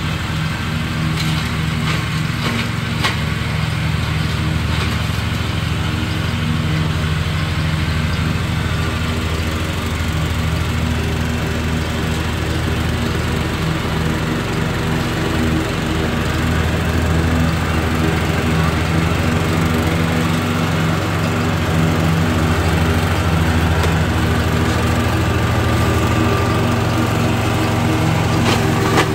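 Riding lawn mower's engine running steadily as the mower is driven along.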